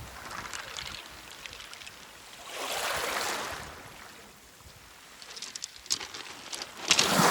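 Waves washing up a pebble beach, a surge rising and falling about three seconds in. Near the end, pebbles clatter in a quickening run of sharp clicks.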